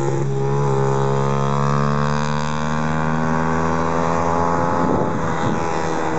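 Yamaha YBR 125's single-cylinder four-stroke engine running through an aftermarket Roncar Aluminium RS exhaust, a steady, continuous engine note. Its pitch rises slightly in the first second, then falls slowly through the rest.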